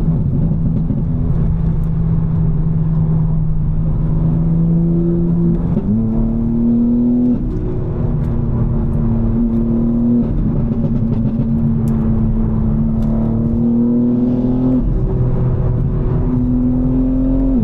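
BMW M4's twin-turbo S58 inline-six running at steady highway revs under way. The engine note holds level, steps up in pitch about six seconds in, creeps slowly higher, then dips and climbs again near the end.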